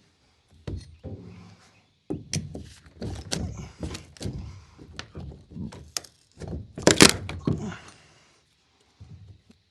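Nailed plywood crate lid being forced and levered loose: a run of wooden thunks and knocks, loudest in a clatter about seven seconds in.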